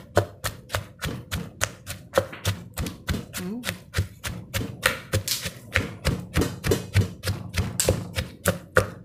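Wooden pestle pounding grilled chilies and shallots in a clay mortar: steady, even thuds about three to four times a second.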